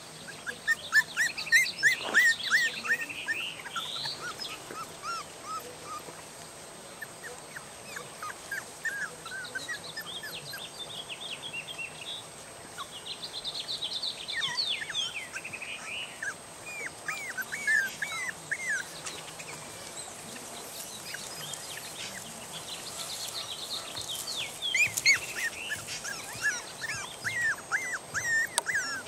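Three-and-a-half-week-old Norrbottenspets puppies whining in many short, high-pitched cries. The cries come in bunches with quieter lulls between, loudest near the start and again near the end. The puppies are upset at being woken from a deep sleep and want their mother to nurse them.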